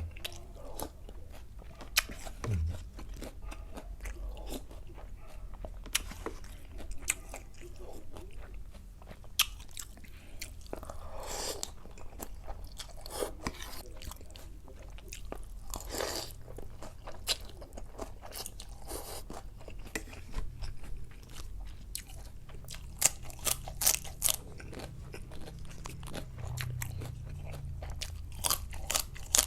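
A person eating close to the microphone: repeated crunching bites and chewing, with many short sharp mouth clicks and a few longer wet smears of sound.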